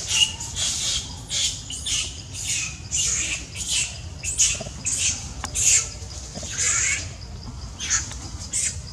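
Baby macaque screaming: a string of short, high-pitched cries, about two a second.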